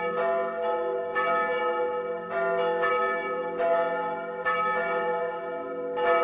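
Several tower bells ringing, struck again and again a little faster than once a second, each strike's tone hanging on and overlapping the next.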